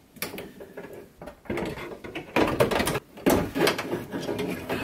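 Clanking and rattling of a Citroën Berlingo's power-window regulator, its metal rails and cables knocking and scraping against the door's inner sheet metal as it is worked loose and out through the access hole, in irregular bursts.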